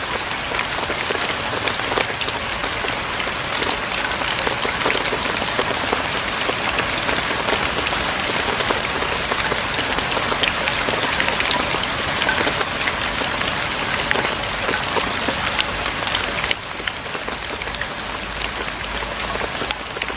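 Steady rain falling on a hanok's clay roof tiles and wall, a dense hiss thick with individual drop taps. About sixteen and a half seconds in it suddenly turns a little quieter and softer.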